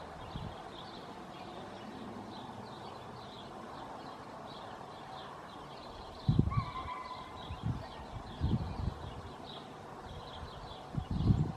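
Small birds chirping rapidly and steadily, with a short pitched call a little past the middle and several low thumps in the second half.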